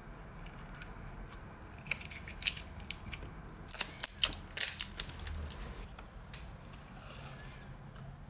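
Fingernails clicking and picking at the end of a roll of washi tape, with a cluster of sharp clicks in the middle, then a soft crackle as a strip of the tape is peeled off the roll near the end.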